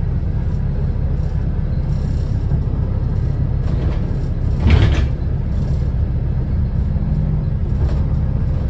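Wrightbus New Routemaster series-hybrid bus running with a steady low rumble and a faint steady whine. There is one loud knock about halfway through.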